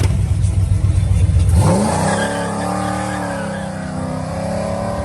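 A car engine runs with a deep low rumble. About one and a half seconds in, the sound changes to a higher-pitched, rising and wavering engine note, like revving.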